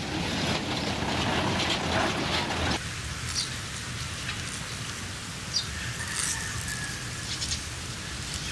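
A dense rustling, gritty noise cuts off sharply about three seconds in. It gives way to the low, steady engine rumble of an old truck loaded with sugar cane as it comes up a gravel road. A few short bird chirps sound over it.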